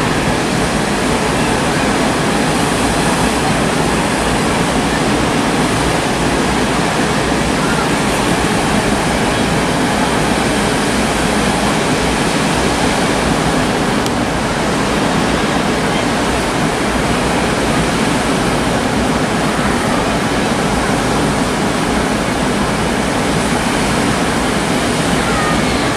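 Loud, steady rush of wind and choppy sea.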